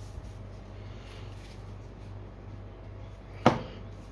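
Magic: The Gathering cards being handled and moved about on a playmat, with faint rustling and one sharp click about three and a half seconds in, over a steady low hum.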